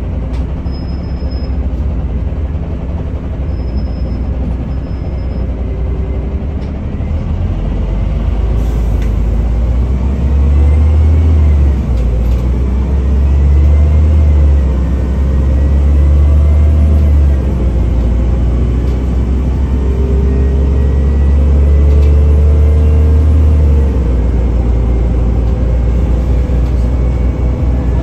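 Cabin sound of a NefAZ-5299 city bus under way: a loud, steady low engine drone and road noise that swells louder several times, with a faint whine rising and falling in pitch.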